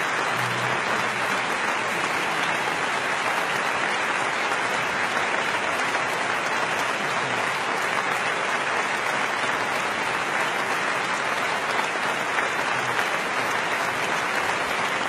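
A large stadium crowd applauding, a steady, dense noise with no letup.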